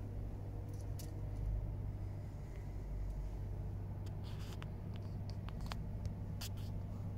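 Mercedes-AMG E63's twin-turbo V8, tuned with an aftermarket downpipe and no catalytic converter, idling steadily as a low hum heard inside the cabin. A few light clicks and taps come from about four seconds in.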